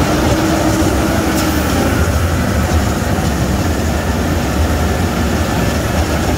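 Heavy military vehicle engines running under load as Humvee-type army trucks and a cargo truck push through a flooded river ford, with water rushing and splashing around the wheels. The sound is a steady low rumble under a wash of water noise.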